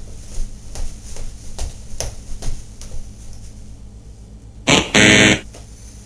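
A loud game-show wrong-answer buzzer sounds about five seconds in, a flat buzz of about half a second, signalling an incorrect guess. Before it come a series of soft knocks, roughly two a second.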